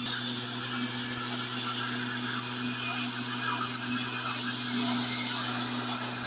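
Steady, unbroken high-pitched insect chorus over a bean field, with a low steady hum underneath.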